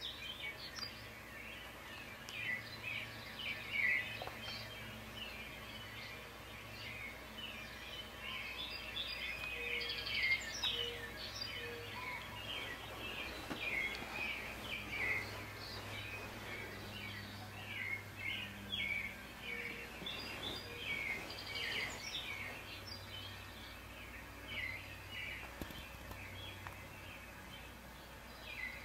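Small songbirds at a seed feeder chirping and twittering in quick, overlapping, downward-sliding notes, played through a TV's speakers.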